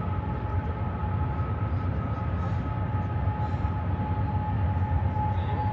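Long double-stacked container freight train running past: a steady low rumble with a steady two-note whine over it.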